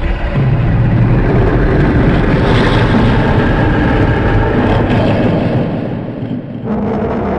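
Designed monster sound effect for the Makara sea creature: one long, loud, deep roar over a steady low rumble, easing slightly near the end before a second roar starts.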